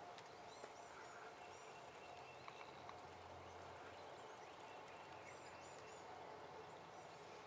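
Near silence in an open field, with faint, high-pitched songbird chirps in short clusters about half a second to a second and a half in and again about five to six and a half seconds in.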